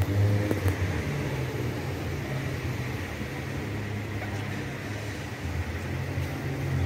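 Steady low rumble of idling car engines with traffic noise, a constant low hum under an even hiss.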